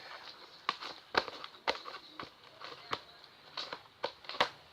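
Glue slime being kneaded and stretched by hand, giving about eight sharp clicks and pops at irregular intervals as air pockets in the slime snap.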